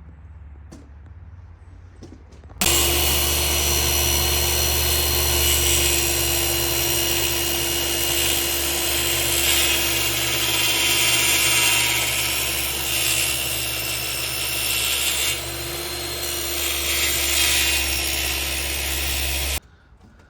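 An electric power tool switched on about two and a half seconds in, running steadily for about seventeen seconds with a little rise and fall in level, then switched off abruptly.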